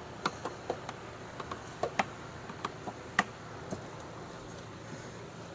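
Scattered plastic clicks and light knocks from a 2012 Toyota Prius V's windshield cowl panel and its push clips as the panel is lifted and pried loose, the loudest a little past three seconds in. The clicks stop about four seconds in.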